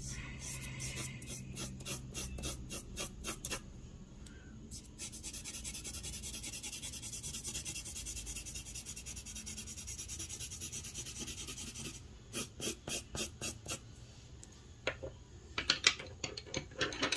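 Charcoal pencil scratching on paper. Quick back-and-forth strokes open the stretch, followed by several seconds of continuous dense shading, then more rapid strokes and a few sharper marks near the end.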